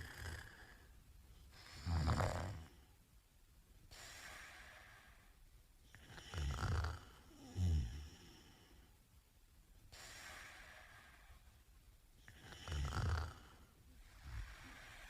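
A man snoring in his sleep: loud, low snores recurring about every five to six seconds, some coming in close pairs, with softer breaths between them.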